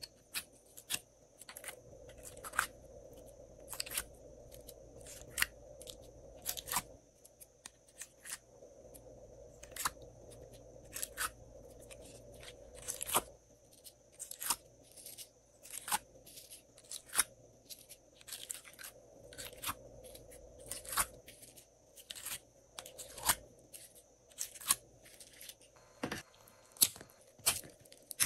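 Glossy slime being poked, pulled and kneaded by hand, making irregular sharp sticky pops and clicks, about one or two a second.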